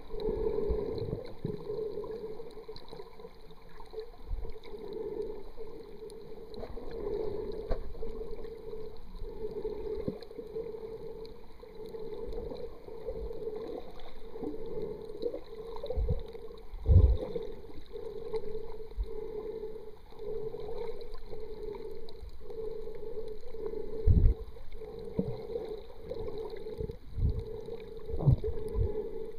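Muffled underwater noise picked up through the sealed housing of a Kodak PlaySport waterproof camera: a dull hum that swells about once a second, with a few low thumps.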